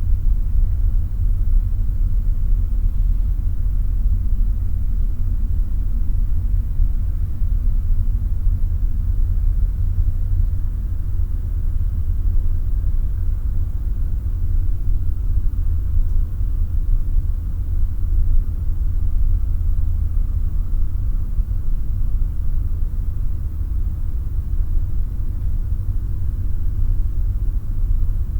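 Room tone ambience: a steady, deep rumble that never changes, with a faint hiss above it.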